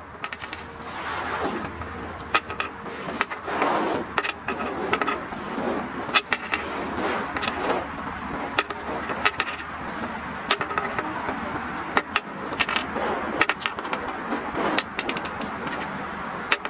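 A steady noisy background crossed by many sharp clicks and knocks at irregular intervals, some in quick runs, with swells of louder noise in between.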